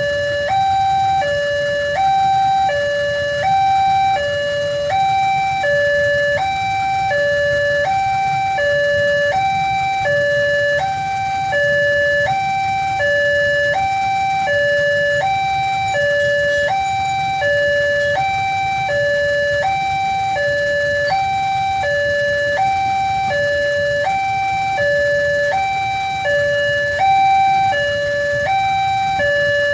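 Railway level-crossing warning alarm sounding continuously: an electronic two-tone signal alternating steadily between a higher and a lower note, the pair repeating about every second and a half, warning that a train is approaching and the gate is closed.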